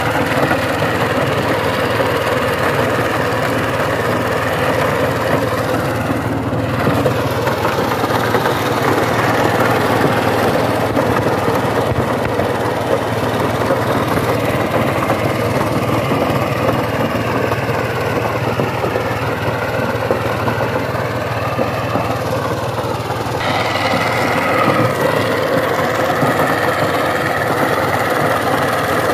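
Single-cylinder diesel engine of a two-wheel power tiller running steadily under load while it drives a rotary tiller through dry soil.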